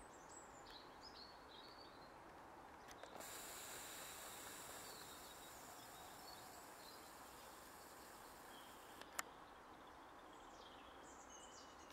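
Near silence: faint outdoor ambience with a few faint bird chirps in the first second or so and again near the end, and a single sharp click about nine seconds in.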